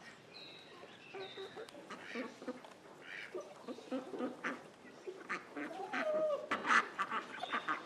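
Farmyard ducks and chickens calling: a busy run of short quacks and clucks that grows louder toward the end, with a few high chirps near the start.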